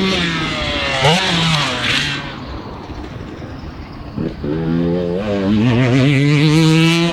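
Two-stroke Husqvarna dirt bike engine revving hard, its pitch rising and falling through the gears. It drops off for a second or so around the middle, then climbs again and holds a high rev near the end.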